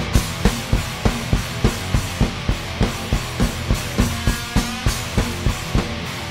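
Heavy rock song played on a budget Eastar acoustic drum kit along with the recorded track: an even, driving beat of kick and snare hits, about three a second.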